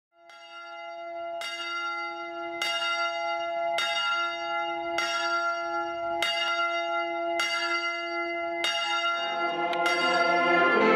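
A single church bell tolling at a slow, even pace, about one stroke every second and a bit, each stroke ringing on into the next.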